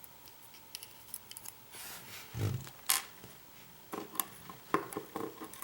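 Small metal clicks and taps of lock pins and a spring being handled and set down as a pin stack is taken out of a pin-tumbler lock, with a brief rustle about two seconds in and a run of quick clicks near the end.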